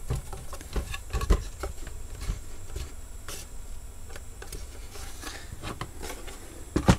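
Handling noise from hot-gluing a plastic speaker enclosure: irregular light clicks and rubs of the glue gun and casing, with a sharper knock near the end.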